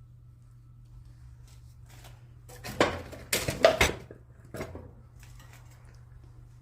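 Metal objects clattering and clinking: a quick cluster of knocks a few seconds in, then one more shortly after, over a faint steady low hum.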